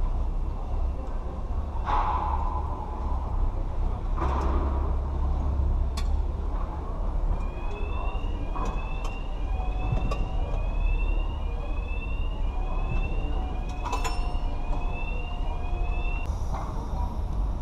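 Band saw running through 304 stainless steel: a steady, loud low machine drone, with occasional sharp clicks. In the second half a short rising chirp repeats about twice a second.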